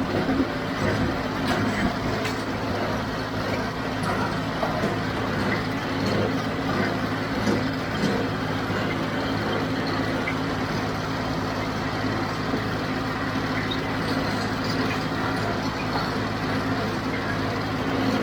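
John Deere 5055D tractor's diesel engine running steadily while pulling a John Deere 348 square baler in the hay, with the baler's clatter mixed into the engine sound.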